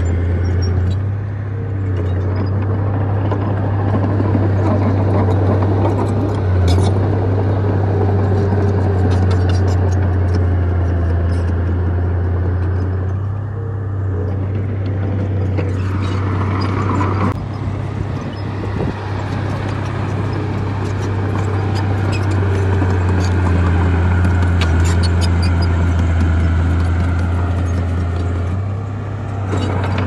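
Small crawler bulldozer's diesel engine running under load as it pushes dirt and rock, a steady low drone that dips briefly a few times, with short clanks over it.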